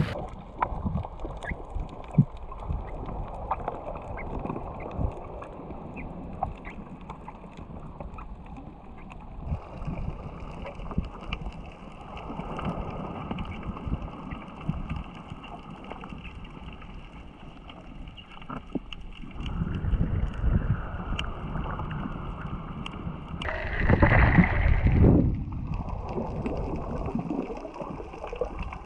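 Muffled underwater sound from a submerged camera: a low watery rumble with scattered clicks and knocks. A louder gurgling rush lasts about a second and a half near the end.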